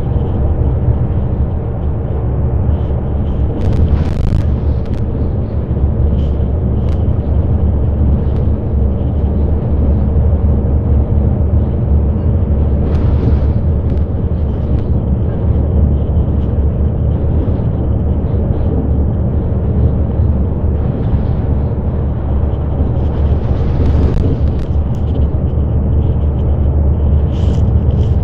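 City bus driving at speed, heard from inside the passenger cabin: a loud, steady low rumble of engine and road noise, with a few short clatters.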